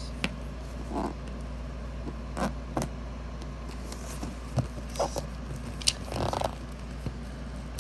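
Plastic shipping mailer being handled and opened: scattered scratches, rustles and sharp clicks, with a short rustle of crinkling plastic a little past six seconds in, over a steady low hum.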